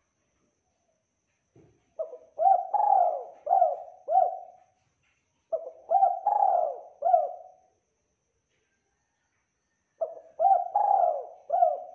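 Spotted dove cooing: three phrases of four or five quick, rising-and-falling coos, each phrase lasting about two seconds with pauses of a second or more between them.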